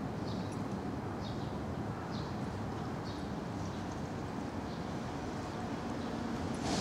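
Steady low rumble of city traffic, with a small bird giving short high chirps about once a second.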